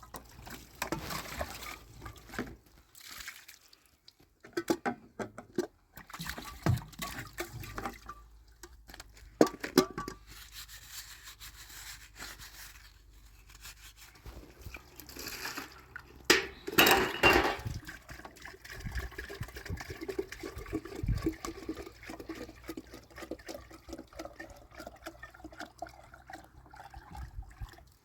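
Water being poured and splashed, with scattered knocks and clatters of handling and one louder burst of noise past the middle.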